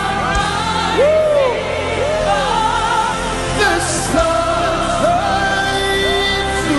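Live gospel worship music: voices singing with gliding melodic runs over sustained keyboard chords and bass.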